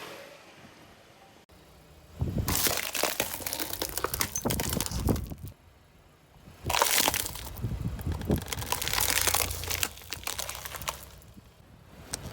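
Things being crushed under a car's tyres: two stretches of crunching and crackling, each about three seconds long, over a low rumble.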